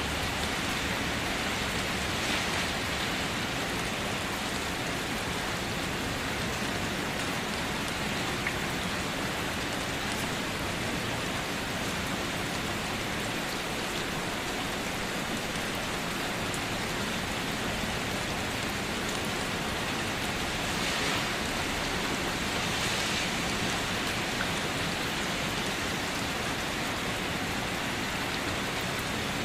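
Light rain falling steadily, a continuous even hiss of drops with a few slightly louder patches.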